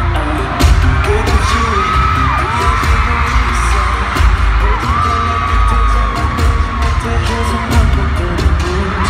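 A K-pop group's live concert music over an arena sound system, heard from among the audience: a pop track with singing and a heavy, pounding beat.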